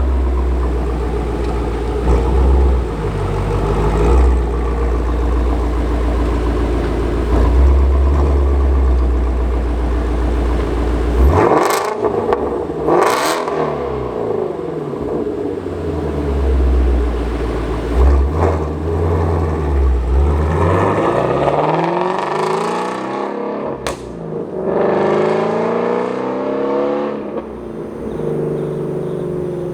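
Supercharged 5.2-litre flat-plane-crank V8 of a Shelby GT350R running through its stock exhaust. It rumbles steadily at first, then about eleven seconds in is revved hard several times. The pitch climbs and drops repeatedly, with a few sharp cracks, and there is a long rising pull near the end.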